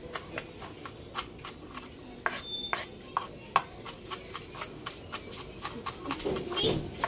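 Kitchen knife chopping red onion on a cutting board: irregular sharp knocks of the blade on the board, several a second, one louder knock about halfway through.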